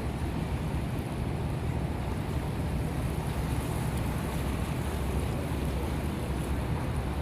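Steady rushing of water, with wind rumbling on the microphone.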